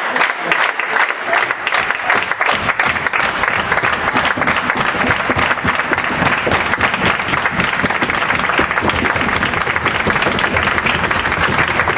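Theatre audience applauding at a curtain call: dense, even clapping of many hands.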